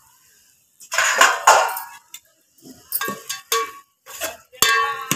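Metal spoon scraping and clinking against an aluminium cooking pot while masala is stirred and fried: a loud scrape about a second in, a few sharp knocks, then a ringing clink near the end.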